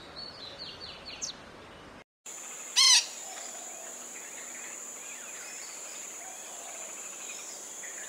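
Oriental magpie robin calling in a run of short, falling high notes during the first second or so. After a brief break there is a steady, high insect drone, with one loud bird call about three seconds in.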